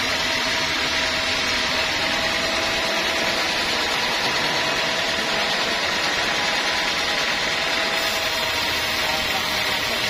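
Band sawmill running steadily, its band blade sawing lengthwise through a teak log.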